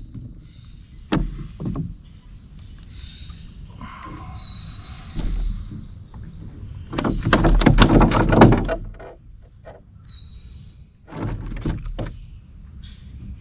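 Knocks and thumps of gear being handled in a small fishing boat: two sharp knocks early on, a loud rattling clatter from about seven seconds in lasting over a second, and a shorter clatter a few seconds later. Birds chirp in the background.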